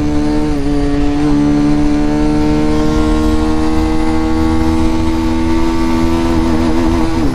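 Bajaj Pulsar 220F's 220 cc single-cylinder engine pulling in third gear, its note holding at a steady pitch. The note wavers and drops about seven seconds in.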